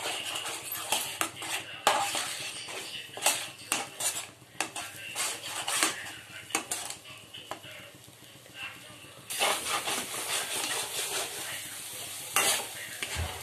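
Metal spatula scraping and clicking against a pan as it stirs an egg mixture frying in oil, with a sizzle underneath. The sizzle gets louder about nine seconds in.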